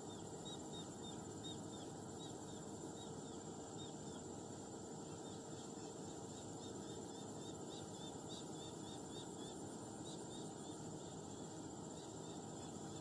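Quiet outdoor ambience: a small animal's short high chirps, repeated three or four times a second. They come in a brief run at the start and a longer run in the middle, over a steady faint high hum and a low hiss.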